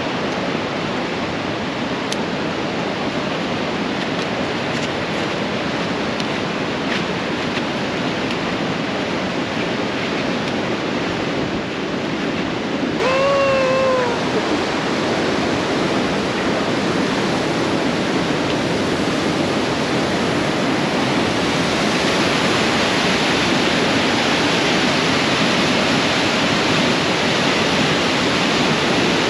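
Steady rush of the Merced River's whitewater pouring over the granite brink of Nevada Fall, growing brighter and a little louder in the last third. About halfway through, one short shout of about a second rises above the water.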